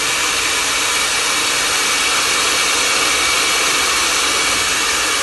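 Rear-wash water jet of a Kohler Universal PureClean bidet seat attachment spraying into a toilet bowl: a loud, steady hiss of spraying, splashing water.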